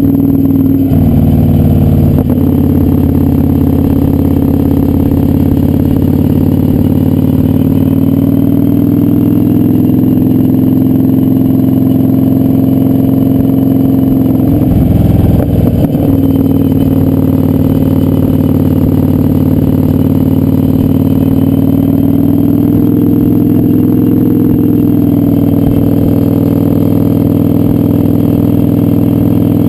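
Kawasaki Vulcan 900's V-twin engine running steadily under way, with a brief change in engine pitch shortly after the start and again about halfway through, as when revs drop and pick up again.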